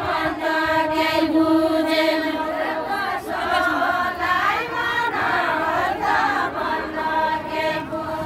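A group of women singing a Deuda folk song together without instruments, in long drawn-out notes sung in unison, phrase after phrase.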